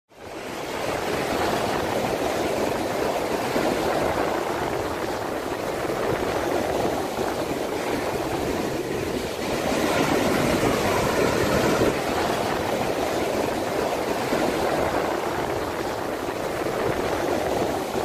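Waves breaking and washing up a sandy beach: a steady rush of surf.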